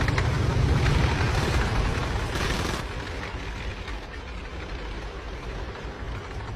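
Action-film battle sound: heavy low rumbling with a few sharp shots or blasts, dropping after about three seconds to a quieter steady rumble.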